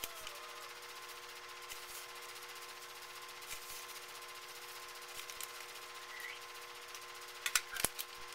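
Light handling sounds of a plastic measuring scoop and a bag of chia seeds: a few faint clicks and rustles, then a cluster of sharp clicks near the end as the plastic scoop is set down on a plastic lid. A steady hum runs underneath.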